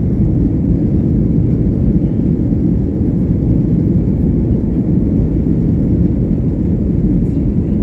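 Airplane engine noise during takeoff: a loud, steady low rumble with no distinct tones.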